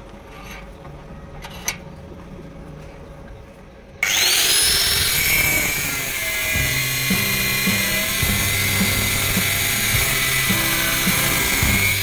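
Angle grinder with a cutting disc starting up about four seconds in, its whine rising in pitch as it spins up, then a loud steady high whine as the disc cuts a notch into a steel rod, throwing sparks. Before it starts, only background music.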